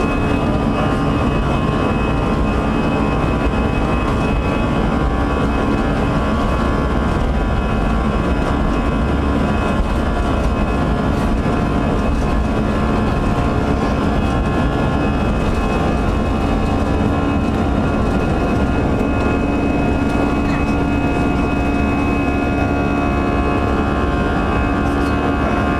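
Airbus A320's jet engines running at takeoff power: a loud, steady rush of noise with several steady whining tones held throughout.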